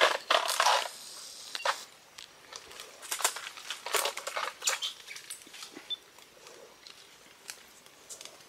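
Crackling, snapping and rustling of palm stem layers and fronds as a palm heart is stripped out by hand, in an irregular run of crisp cracks, loudest in the first second.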